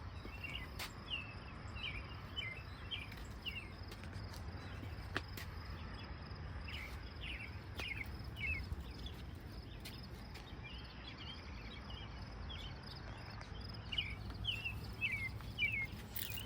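Birds calling: groups of short, quick chirps, each falling in pitch, come in runs of several notes three times over, above a steady low background rumble.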